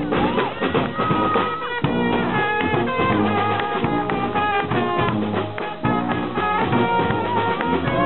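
Brass-and-drum marching band playing live: sousaphones carry a repeating bass line under saxophones, trumpets and trombone, with bass drum, cymbal and snare drums keeping a steady beat.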